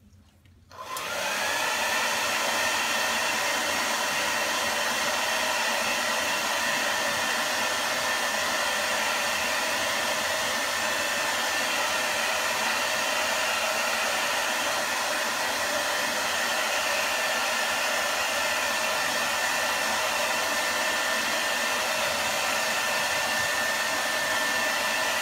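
Handheld hair dryer switched on about a second in, quickly rising to full speed, then running steadily as a rush of air with a high whine from its fan motor.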